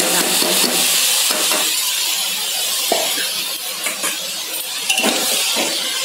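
Vegetables and rice sizzling steadily in hot ghee in an aluminium pressure cooker, with a couple of sharp metal clinks of spoon or vessel about three and five seconds in.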